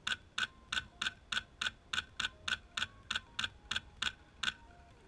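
PolarStar Fusion Engine high-pressure-air airsoft rifle firing a quick string of single shots, about fifteen sharp pops at roughly three a second, stopping about four and a half seconds in.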